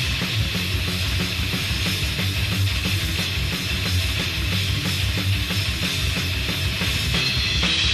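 Thrash metal band playing an instrumental passage: distorted electric guitars, bass and fast drums, from a 1980s demo recording.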